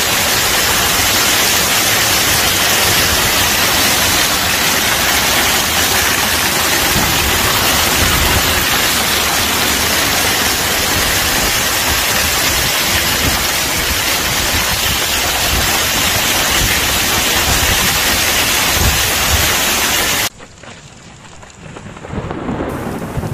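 Heavy hail and rain falling hard in a hailstorm: a loud, dense, steady hiss with uneven low rumbling underneath. It cuts off abruptly about twenty seconds in.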